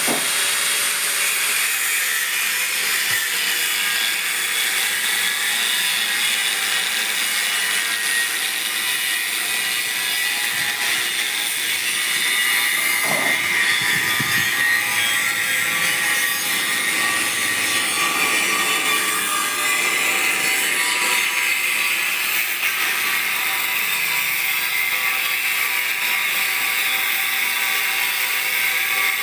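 Milling machine cutting a metal workpiece: a steady, high-pitched cutting noise.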